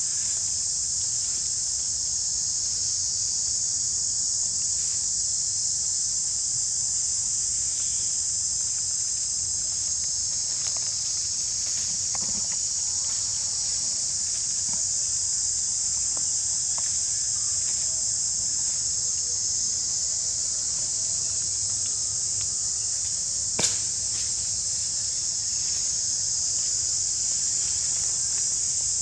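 Steady, high-pitched chorus of insects droning without a break, with one sharp click about three-quarters of the way through.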